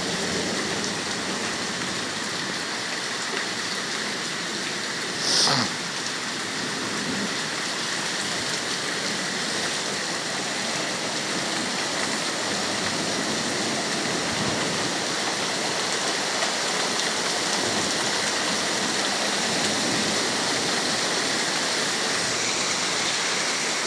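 Heavy rain pouring steadily in a thunderstorm, with one short sound falling in pitch about five seconds in.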